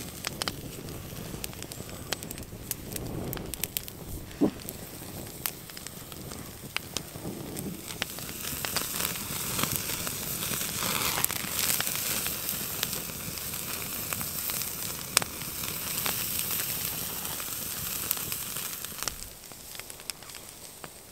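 Wood fire crackling with sharp pops under a grill rack, and burger patties sizzling on the grate. The sizzle swells about eight seconds in, as the patties are pressed down with a wooden spatula, and dies down near the end.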